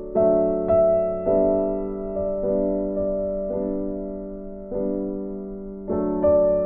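Gentle background piano music, slow notes struck every half second to a second and left to fade.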